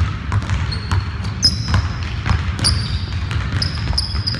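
Basketball sneakers squeaking in short high chirps on a hardwood gym floor, with a basketball bouncing and thudding on the court, over a steady low rumble.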